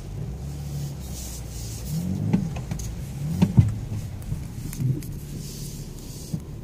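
BMW X6 driving slowly over a muddy off-road track, heard from inside the cabin: a low engine and tyre rumble, the engine note rising and falling twice, with a few sharp knocks from bumps around two to four seconds in.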